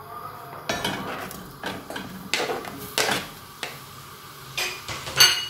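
Diced onions being tipped and scraped into a stainless-steel saucepan of oil: a run of knocks and clatters, with one sharp, loud knock near the end.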